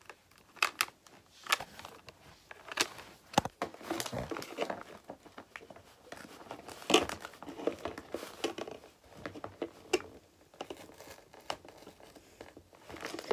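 A toy's packaging box being pulled and torn apart by hand: irregular crinkling, tearing and sharp snaps, the loudest about seven seconds in.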